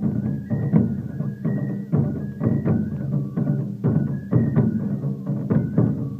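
Music: drums struck in a steady repeating rhythm, with a high melody line stepping between a few notes above them.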